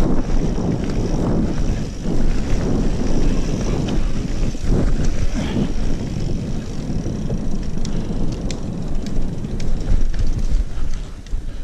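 Wind rushing over the microphone of a mountain bike riding fast down a dirt trail, with tyre rumble. There is a scatter of sharp clicks and rattles from the bike, most of them near the end.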